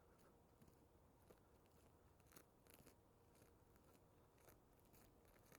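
Near silence with faint, irregular crunching clicks, like footsteps on snow.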